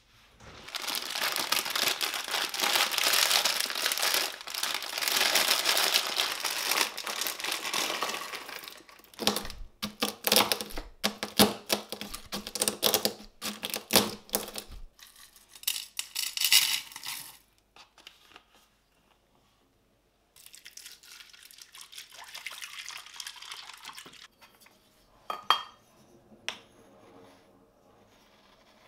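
Long, loud scratchy rustling, then whole chai spices being pounded in a wooden mortar with a pestle: a run of sharp knocks, then gritty scraping and grinding. A few light clicks near the end.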